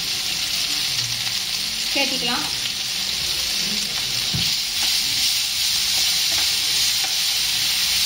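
Diced potatoes sizzling in hot oil in a nonstick frying pan, a steady hiss, with a spatula stirring them near the end.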